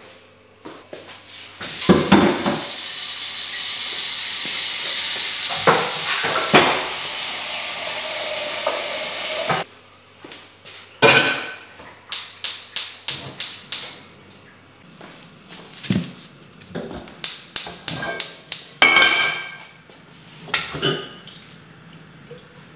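Kitchen cooking sounds: a steady hiss for several seconds that cuts off suddenly, then quick runs of sharp knocks and clinks of pots, pans and utensils.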